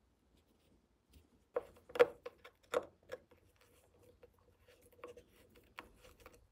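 A few sharp clicks of a screwdriver and small steel screw being handled against a wooden soldering-iron handle, about one and a half to three seconds in and loudest near two seconds. They are followed by faint scratchy ticking as the screw is turned into the wood by hand.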